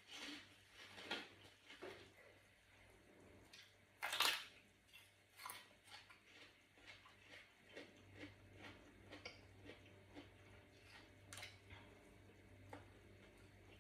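Close-up eating sounds of someone eating a spicy Thai mushroom salad by hand: soft wet chewing, lip smacks and finger licking as a string of faint clicks, with one louder burst about four seconds in.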